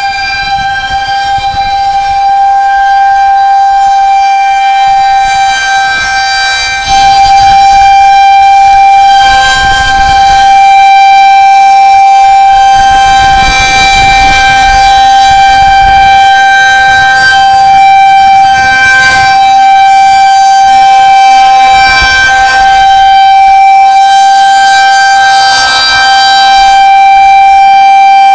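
Outdoor tornado warning siren sounding a steady alert tone at one held pitch, swelling and fading in loudness every few seconds.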